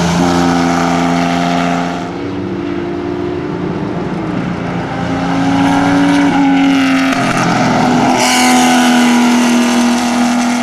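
Air-cooled flat-six engines of Chevrolet Corvair race cars running hard on a road course, the engine note falling and rising as they lift off and accelerate through the corners. The sound changes abruptly about two seconds in and again near eight seconds.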